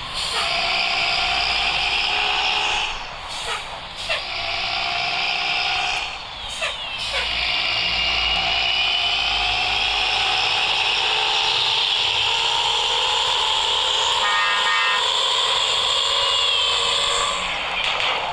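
Nissan CB bus running, with a whine that rises slowly in pitch for about ten seconds and drops near the end. A few short sharp clicks come between three and seven seconds in.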